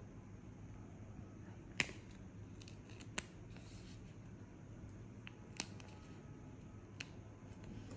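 Heat transfer vinyl film being peeled by hand off its backing, giving a few sharp ticks and crackles, the loudest about two seconds in, over a faint low hum.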